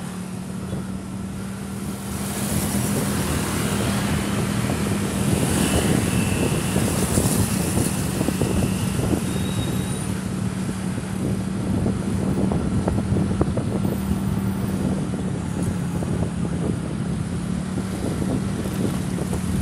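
Motorcycle engine running at a steady speed while riding past slow-moving traffic, with wind rumbling on the microphone.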